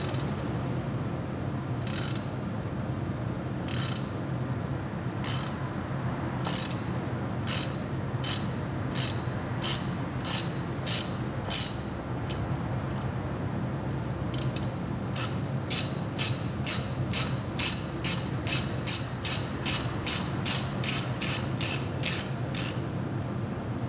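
Ratchet wrench clicking as it backs out a broken exhaust manifold bolt by a nut welded onto its stub in an LS cylinder head. Single clicks come a second or two apart at first, then a quicker run of two to three clicks a second in the second half as the bolt turns more freely.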